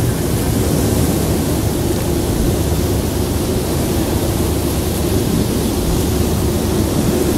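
Ambient soundscape: a steady, unbroken wash of rushing noise, heaviest in the low end, with a faint steady hum-like tone beneath it.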